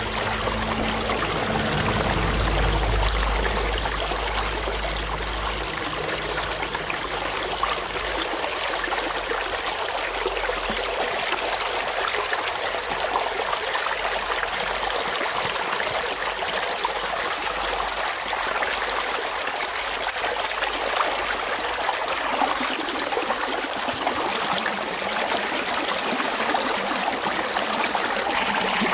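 Water rushing and splashing steadily down a narrow concrete channel and through a tyre-built vortex basin set in the flow, with a low rumble for the first few seconds.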